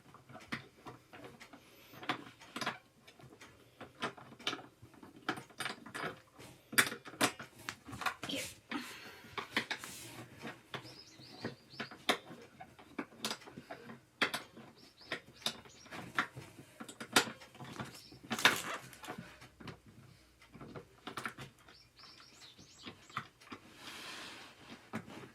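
Gaming chair being assembled by hand: irregular clicks, taps and knocks of chair parts and tools being handled and fitted, with a few short high squeaks.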